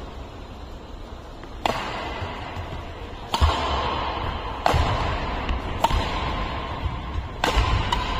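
Badminton rally: five sharp racket strikes on the shuttlecock, one to one and a half seconds apart, each ringing briefly in a large indoor hall, with dull footfalls on the court between them.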